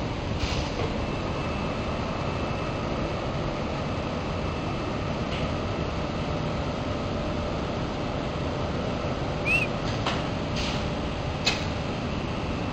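Steady mechanical din of an ACM-30 air classifying mill graphite spheroidizing line running, with a faint steady whine over it. A few light clicks and a brief squeak about two-thirds of the way through.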